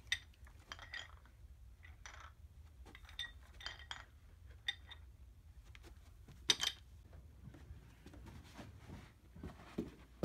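Metal weight plates on a small plate-loaded dumbbell clinking against each other as it is handled: about seven separate ringing clinks over the first seven seconds, the loudest about six and a half seconds in. A few soft knocks follow near the end.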